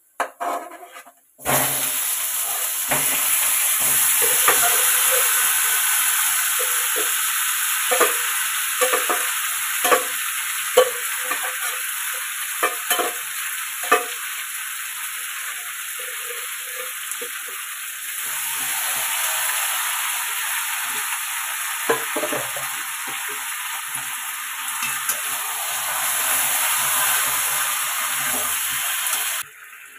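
Marinated chicken sizzling as it goes into hot oil with fried onions and whole spices in an aluminium kadai. A steel spatula scrapes and knocks against the pan while stirring. The sizzle starts suddenly about a second and a half in and cuts off just before the end.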